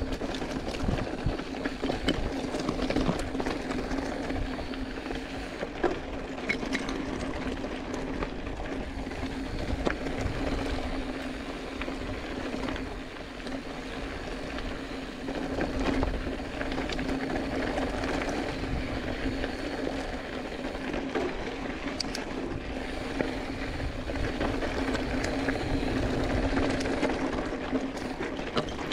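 Giant Fathom 2 hardtail mountain bike rolling fast over a rocky, gravelly dirt trail: tyre noise on loose stones with constant small clicks and rattles from the bike, over a steady hum.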